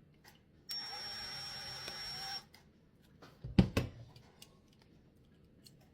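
A steady hissing whir with a thin high whistle starts abruptly, lasts under two seconds and cuts off. About a second later come two sharp knocks as small die-cast car parts are handled on the bench.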